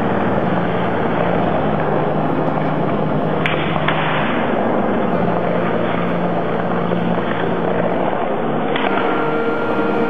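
Skateboard wheels rolling over a smooth concrete floor, a steady rumble, with sharp clacks about three and a half seconds in, again just after, and once more near the end.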